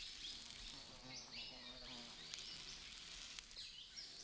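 Faint forest ambience: birds giving repeated short, high chirping calls over a steady hiss of insects.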